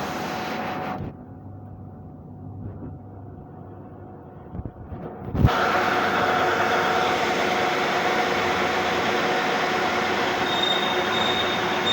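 A metal lathe starts up after a few clicks about five seconds in, then runs steadily with a loud grinding hum and a few steady tones.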